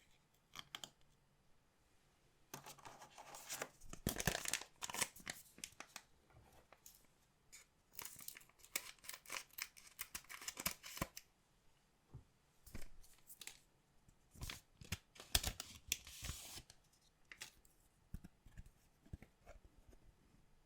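Packaging of collectible card packs being torn open and crinkled by hand, in three main bouts of tearing with small clicks of handling between them.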